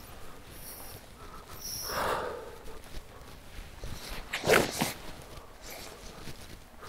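A full golf swing striking the ball off the fairway turf: one sharp, loud strike about four and a half seconds in.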